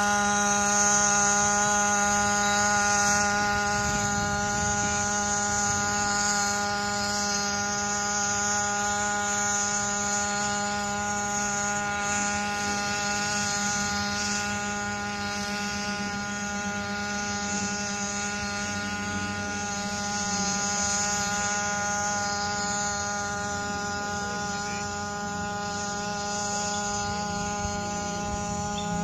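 D130 X4 hybrid quadcopter droning in flight: a steady pitched hum with many overtones, holding one pitch and easing slightly in level.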